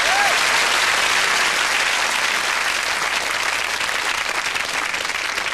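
Studio audience applauding, dense and steady, easing off slightly toward the end.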